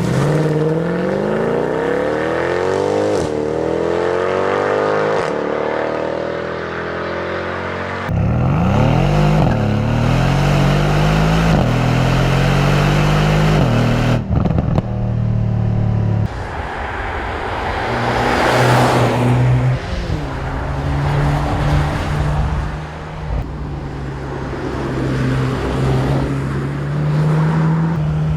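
Mercedes-AMG C63 engine and exhaust accelerating hard through several upshifts, the pitch rising and dropping back with each gear change, in a string of short clips with a louder swell near the middle.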